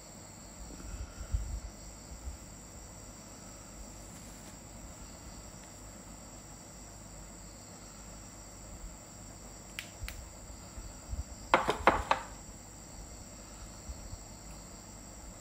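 Crickets chirring steadily in the background, with a short cluster of clicks and knocks from handling, the loudest sound, about three quarters of the way through.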